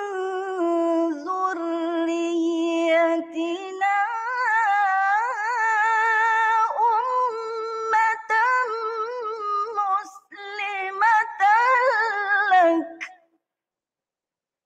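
A woman reciting the Quran in melodic tarannum style, drawing out long, wavering, ornamented notes on the words "wa min dhurriyyatina". Her voice stops about 13 seconds in.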